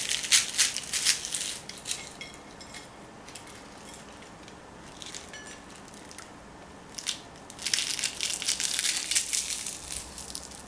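Crisp, flaky fried katlama pastry crackling and crunching as it is torn apart by hand. There are two spells of crackling, at the start and again near the end, with a quiet stretch between.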